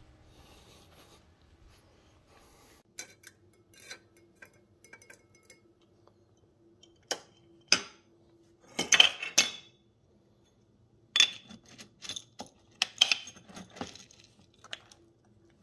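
Dry dog kibble being scooped out of a glass clamp-lid storage jar: scattered clinks and rattles of the scoop and kibble against the glass. They start about three seconds in, come in short clusters, and are busiest in the second half.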